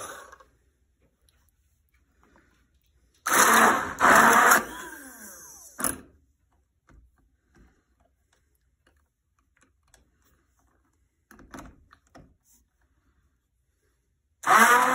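Mostly quiet handling with a few light clicks, broken about three seconds in by a loud burst lasting about a second and a half. Near the end a hand-held immersion blender switches on in a pot of tomato sauce and runs with a steady hum.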